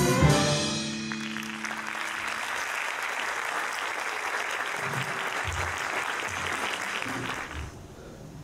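A youth orchestra's final chord rings out and gives way to audience applause, which runs for about six seconds and then dies away near the end.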